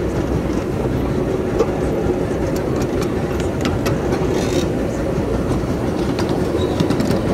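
Ride-on miniature railway train rolling along its track: a steady rumble with irregular clicks of the wheels over the rail joints.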